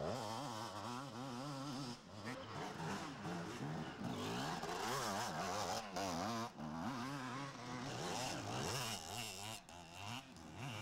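Several enduro dirt bikes riding past one after another, their engines revving up and down as the riders work the throttle over the trail.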